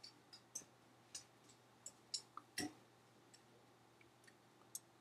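Near silence broken by about a dozen faint, sharp, irregularly spaced clicks and ticks, the loudest and slightly deeper one just past halfway.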